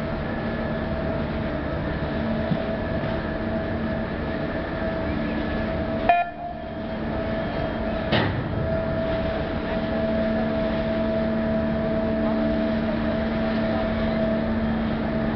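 Ferry's engine running with a steady drone and several humming tones. About six seconds in there is a sharp click and a brief dip in the sound, then another short knock about two seconds later.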